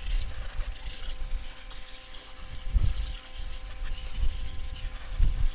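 Garden hose spray nozzle hissing steadily as it washes grime off a fouled bucket. Two dull low rumbles come through, about three seconds in and again near the end.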